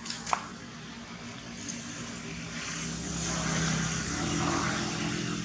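Engine hum of a motor vehicle, growing louder from about halfway through and holding steady near the end. A single sharp click sounds just after the start.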